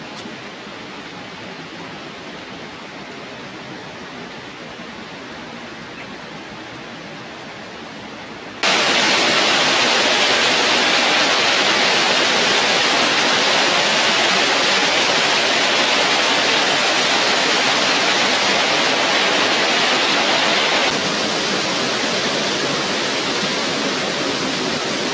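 Steady rush of water falling over a cascade. It jumps abruptly much louder about nine seconds in and drops back slightly around twenty-one seconds in.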